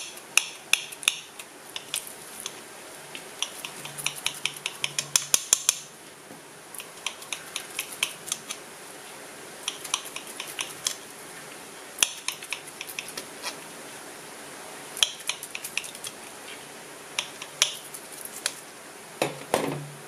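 Table knife cutting through clear slime studded with foam beads on a plate: runs of sharp clicks and crackles as the blade presses through the beads and taps the plate, in clusters with short pauses. A louder, duller sound comes just before the end.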